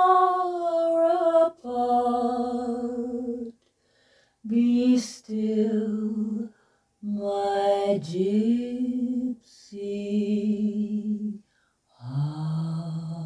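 A woman singing a cappella, with no accompaniment: slow phrases of long held notes with vibrato, separated by short breaths, with a swoop in pitch about eight seconds in and a lower held note near the end.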